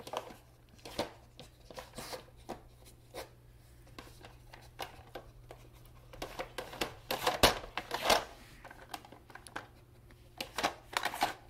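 Plastic dog puzzle toy being worked by a German Shepherd's nose and paws: irregular clicks, knocks and rattles of its plastic lids and sliding pieces, busiest around the middle and again near the end.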